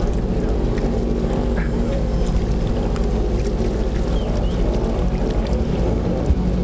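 Motorboat engine running steadily, a low even drone.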